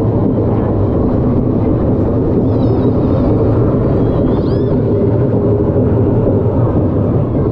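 Steady low rumble, like a vehicle in motion, with a few faint high squeaks a few seconds in.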